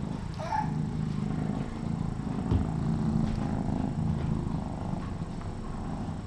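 Domestic cat purring close to the microphone: a steady, pulsing low rumble.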